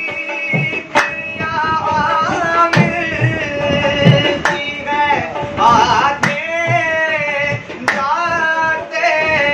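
Qawwali: a lead voice sings a long, ornamented line over a harmonium, with a hand drum and hand claps keeping a steady beat.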